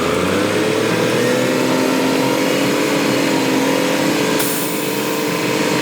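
Steady hiss of spraying water with a motor-driven pump humming under it, its pitch rising slightly in the first second. The water is washing mud off a toy cement mixer truck.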